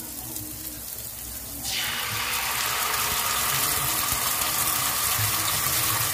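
Canned sardines in sauce tipped into a hot pan of sautéed garlic and onion, setting off a hissing sizzle that jumps up about two seconds in and then holds steady.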